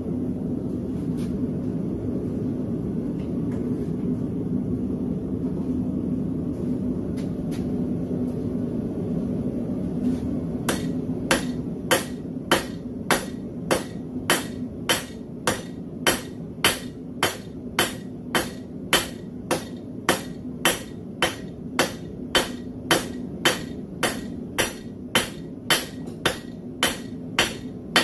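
A steady low rumble. About ten seconds in, a hand hammer starts striking a red-hot railroad-spike cross on a steel anvil, just under two sharp ringing blows a second, texturing and evening out the forged arm.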